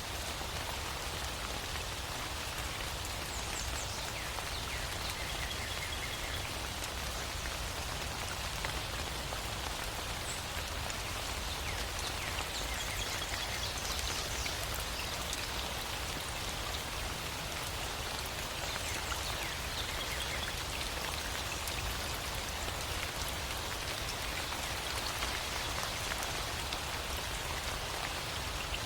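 Steady rain falling and pattering on surfaces, with a few faint, brief high chirps now and then.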